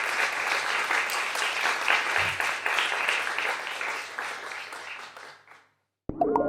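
Small audience applauding, a dense patter of claps that fades away about five seconds in. A sustained, ringing musical chord starts just before the end.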